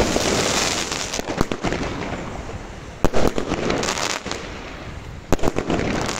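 Fireworks going off: several sharp bangs a second or so apart, each trailed by a noisy hiss.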